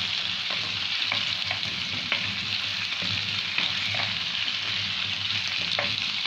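Hollowed-out potatoes sizzling steadily as they fry in ghee and garlic in a nonstick pan, stirred with a wooden spatula that gives a few light clicks against the pan.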